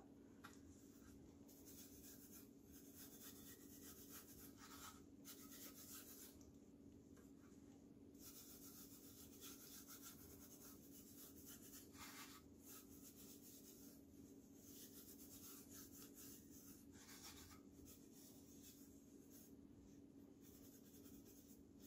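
Very faint soft swishing and rubbing as bare hands rub loose glitter into the glitter-coated surface of a stainless steel tumbler and turn it, with a faint steady hum underneath.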